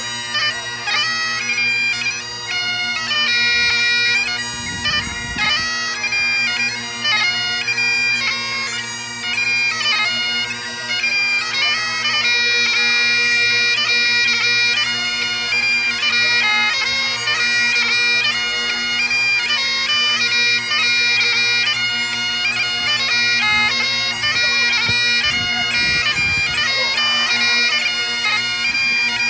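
Great Highland bagpipe played solo: steady drones sounding under a quick, constantly changing chanter melody.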